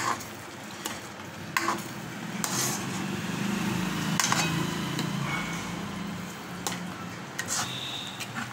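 A steel ladle stirring thick paneer masala gravy in a kadai, scraping and knocking against the pan every second or so, over the gravy's sizzle.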